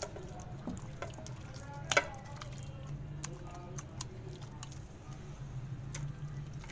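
A hand squishing and rubbing a wet marinade into raw chicken pieces, with scattered small clicks and one sharper knock about two seconds in, over a low steady hum.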